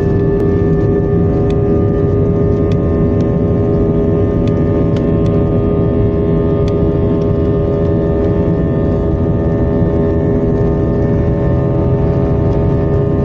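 Airbus A320's jet engines at takeoff power during the takeoff roll, heard inside the cabin: a loud, steady rumble with a strong whine held at one pitch. A few faint clicks are heard through it.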